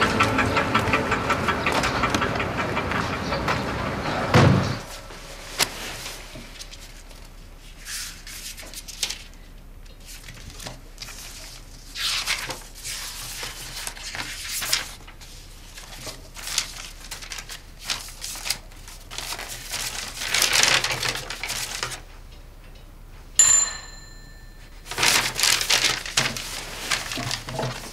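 Background music for the first four seconds or so, ending on a loud stroke. Then paper rustling in short bursts as sheets of paper are leafed through and handled, with one brief high ringing note about twenty-three seconds in.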